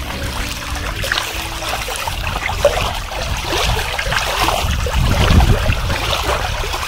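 Lake water lapping and splashing in small waves at the shoreline, a busy run of small irregular splashes over a low rumble.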